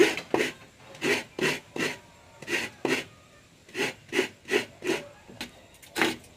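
Repeated rasping scrape strokes by hand, about two to three a second in short runs of two to four, with brief pauses between runs.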